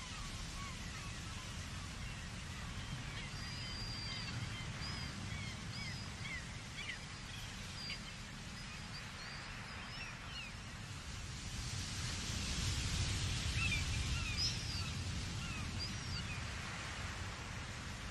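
Outdoor nature ambience: many short bird chirps and whistles over a steady low rumble and hiss, growing a little louder about two-thirds of the way through.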